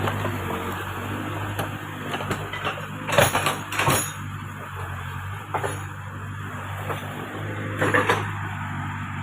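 Backhoe loader's diesel engine running steadily, with two loud knocks about three seconds in and another near the end.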